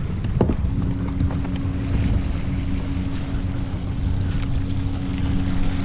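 Wind buffeting an action-camera microphone on a kayak at sea, a dense low rumble with a steady low hum starting under a second in and a few light clicks.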